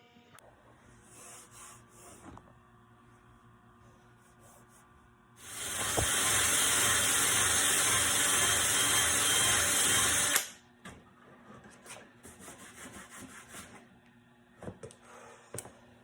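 A power tool runs steadily for about five seconds, starting a little past the five-second mark and cutting off suddenly, as surface rust and paint are stripped from a steel car dashboard down to bare metal. Quieter handling and scraping sounds come before and after it.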